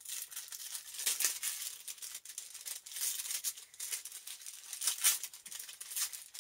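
Hands rustling and crinkling packaging while unwrapping a small item: a dense run of small crackles, louder in a few short stretches.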